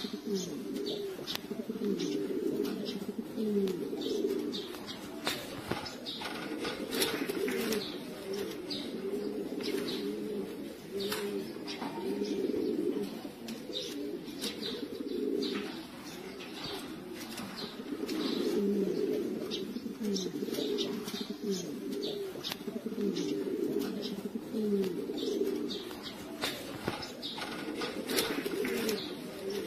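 Many domestic pigeons cooing at once, a dense overlapping chorus of low coos that never lets up, with short sharp clicks scattered through it.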